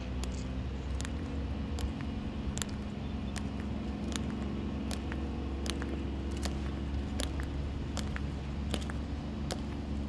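Three ceremonial guards marching in step on a stone plaza, their metal-tapped dress shoes giving sharp, even footfalls about two and a half times a second, over a steady low hum.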